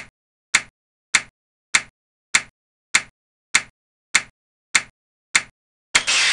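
Computer-animation sound effects: a sharp click a little under twice a second, one for each clock tick the running process uses. Near the end a burst of hiss begins as the process reaches its 15-tick limit and is taken off the head of the queue.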